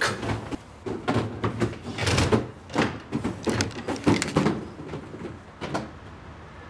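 A rapid, irregular series of knocks, bangs and clatters, with a shout at the start, dying away near the end.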